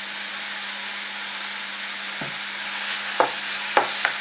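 Chopped vegetables sizzling in oil in a metal kadai, a steady hiss; from about two seconds in a spatula clicks and scrapes against the pan about four times as they are stirred.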